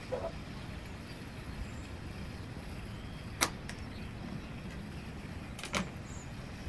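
Light clacks of a kitchen knife and wooden cutting board being handled on a wooden table: one sharp click about halfway through and a quick double click near the end. Underneath is a steady low outdoor background.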